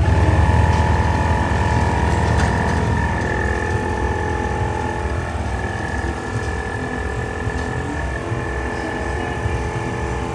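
Portable car tyre compressor (air pump) switching on and running steadily: a buzzing motor hum with a thin high whine. Its pitch dips slightly a few seconds in as it works against the tyre's pressure.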